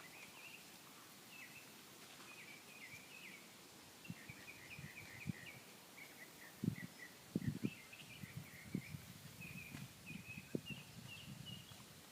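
Faint birds chirping in quick repeated short notes, with scattered soft low thumps and rustles from about halfway on.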